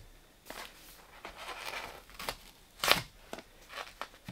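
Razor knife slicing across a kraft-faced R-13 fiberglass insulation batt, held flat under a level used as a straightedge. Faint scattered scratches and rustles of the blade through paper facing and fiberglass, with one louder stroke about three seconds in.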